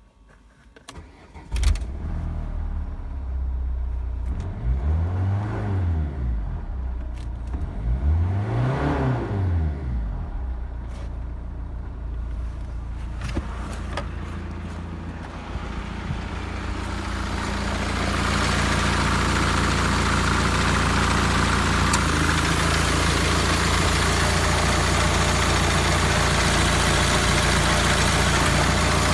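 Renault 1.9 dCi (F9Q820) four-cylinder turbodiesel starting about a second and a half in, then idling, with two short revs that rise and fall in pitch. From about eighteen seconds in it is heard up close in the open engine bay, louder and fuller, idling steadily.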